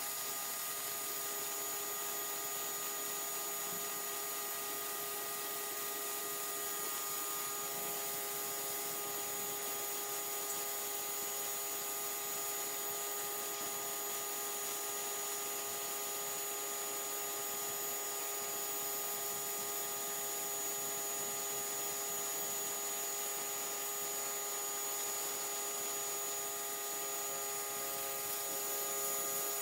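Simoniz 1800 PSI electric pressure washer running: the steady hiss of its water jet spraying onto concrete, over a steady, high electric whine.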